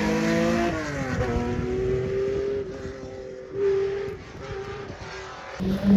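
Rally car accelerating away under full throttle. Its engine note rises, drops sharply at an upshift about a second in, then climbs again and fades into the distance. Near the end the next rally car arrives loudly.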